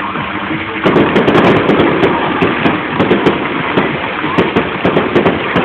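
Fireworks going off in a dense run of rapid popping and crackling, which gets suddenly louder about a second in.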